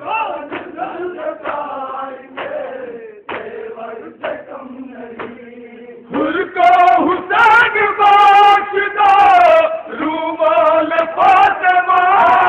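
Men's voices chanting in a sung, mournful recitation into a microphone, much louder and fuller from about six seconds in.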